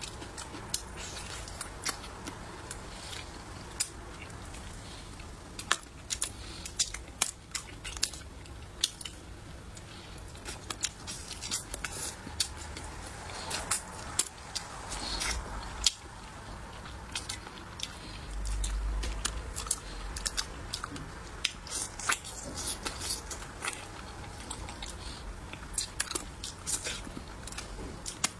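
Close-miked biting and chewing of a braised duck head, with frequent short crunchy clicks and wet mouth sounds as the bones and skin are worked.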